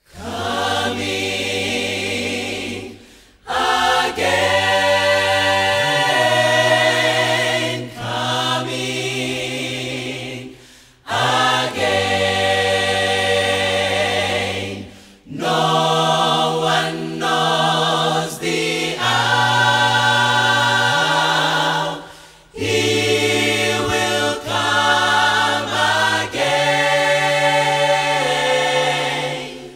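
Mixed-voice gospel choir singing in harmony, with low bass notes held under the upper voices. It starts suddenly and the singing breaks off briefly about four times between phrases.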